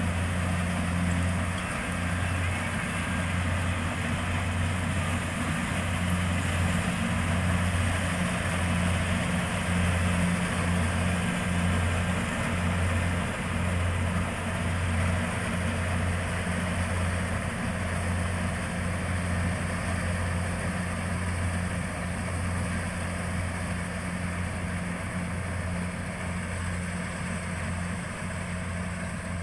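Rice combine harvester's engine running steadily with a low, even hum and a wide mechanical hiss over it.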